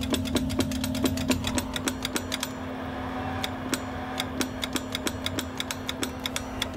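Newly replaced keying relay in a 2x8 CB linear amplifier clicking in and out over and over, about four to five clicks a second, over a steady hum.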